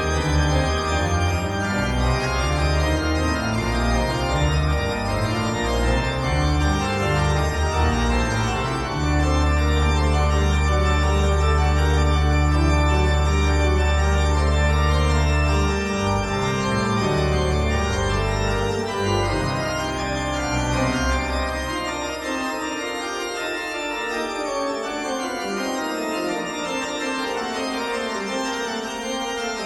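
Background organ music of sustained chords over a deep bass line. The bass holds one long note partway through and drops out about two-thirds of the way in.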